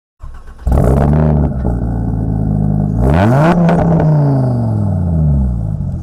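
Car engine sound under the channel's logo intro: the engine runs, revs up sharply about three seconds in, then its pitch slowly falls away, and the sound cuts off abruptly at the end.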